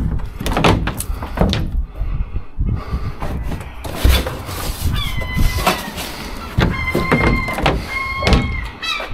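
Metal scrap, likely aluminium signs, being handled in a skip: repeated knocks and clattering, with short high squealing scrapes several times in the second half.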